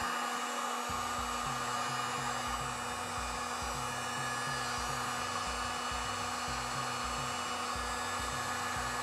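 Heat gun running steadily: a continuous rush of blown air with a steady motor hum.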